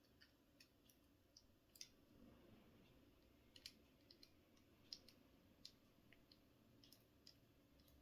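Faint, irregular metallic clicks of a lock pick working in the keyhole of TCH 840 handcuffs, trying to release the double lock.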